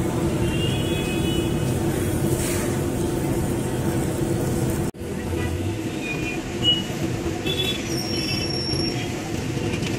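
Bondas deep-frying in a large kadai of hot oil: a steady low rumble of bubbling oil, briefly cut off about halfway through.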